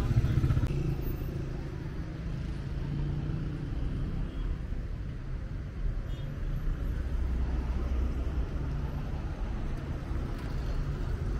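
Road traffic at a busy city square: car engines running and cars passing, heard as a steady low drone.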